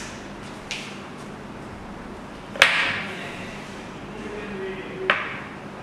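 Two sharp knocks of something hard: a loud one about two and a half seconds in with a short ringing tail, and a smaller one near the end, with a faint tick near the start.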